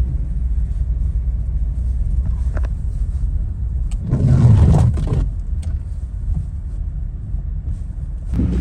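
A car driving slowly on an icy road: a steady low engine and tyre rumble. A louder rush of noise comes about four seconds in and lasts about a second, and the engine grows louder just before the end.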